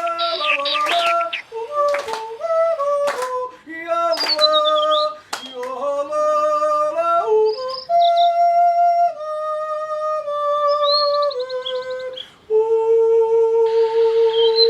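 A woman yodeling, her voice flipping quickly between low and high notes, then holding long notes that step down and settling on one long held note near the end. Brief high bird chirps sound over the singing a few times.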